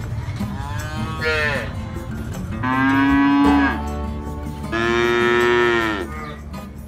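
Cattle mooing: a short falling call about a second in, then two long drawn-out moos, the second slightly higher-pitched.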